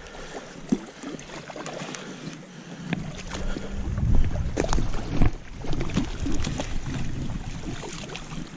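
Handling noise from a spinning rod and reel while a hooked trout is played: scattered clicks and rustles of the reel, rod and gloved hands, with a low rumble of wind or handling on the microphone around the middle.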